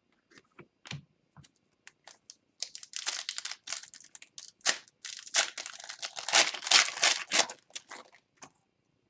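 Trading-card pack wrapper of an O-Pee-Chee Platinum hockey pack being torn open and crinkled. A few light clicks and rustles come first, then about two seconds in a dense crinkling runs for roughly five seconds.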